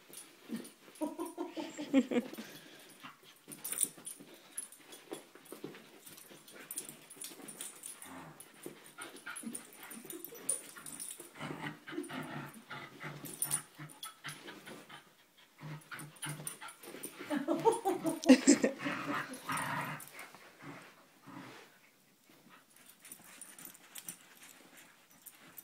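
Two puppies growling in play as they tug a rope toy between them, with scuffling and shuffling on the carpet. The vocalising comes and goes, and is loudest in a stretch about eighteen seconds in.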